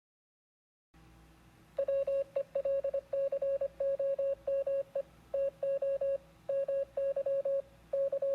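A rapid series of electronic beeps at one steady pitch, short and longer tones keyed on and off like Morse code, starting about two seconds in over a faint hum.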